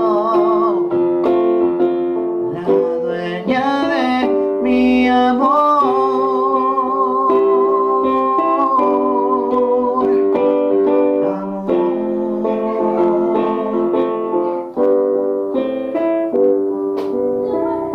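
Electronic keyboard playing slow sustained chords, with a man's voice singing drawn-out, wavering notes over it near the start and again a few seconds in.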